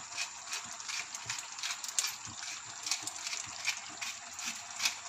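Wooden pepper mill twisted by hand, its grinder grinding black peppercorns in a run of irregular crunchy clicks, a few a second.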